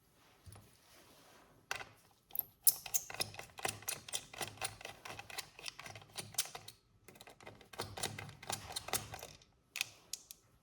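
Rapid run of small sharp clicks and taps from hands working on a laptop's case and parts. It comes in two stretches, with a short pause about seven seconds in.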